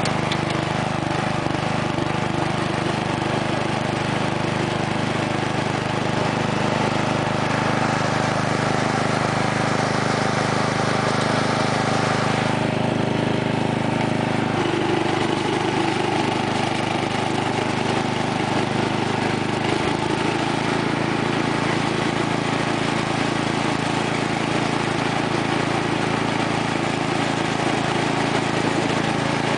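A 1990 Sears Craftsman lawn tractor's 12 hp Briggs & Stratton Industrial/Commercial single-cylinder engine running steadily through an MTD-style muffler while the tractor is driven. Its note changes a little about halfway through and again about two-thirds through.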